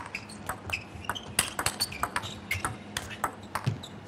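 Table tennis rally: the plastic ball clicking off the rackets and bouncing on the table in a quick, irregular run of sharp ticks, several a second.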